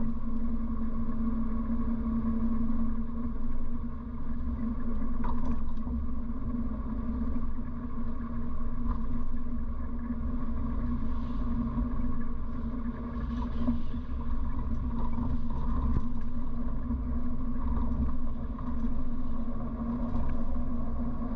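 1957 Morris Minor's small four-cylinder A-series engine running steadily while driving, heard from inside the cabin: an even drone over low road rumble, with a few faint rattles about five seconds in.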